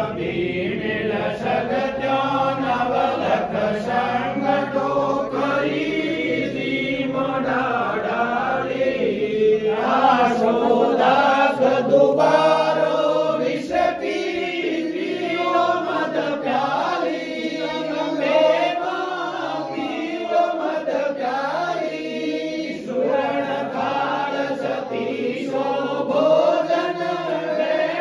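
Several voices singing a Hindu aarti hymn together, a steady devotional chant.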